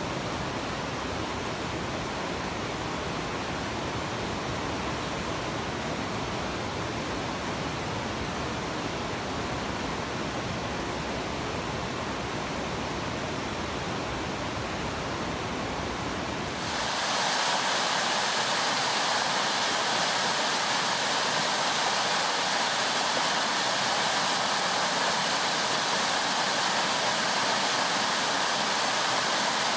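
Flood-swollen river rapids rushing steadily, an even, deep-reaching noise. About halfway through, it gives way suddenly to a louder, hissier rush of brown floodwater gushing close by over a concrete ledge.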